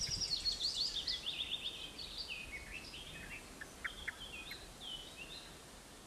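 Small songbirds singing: a quick run of high notes falling in pitch over the first two seconds, then scattered short whistles and chirps that grow fainter toward the end.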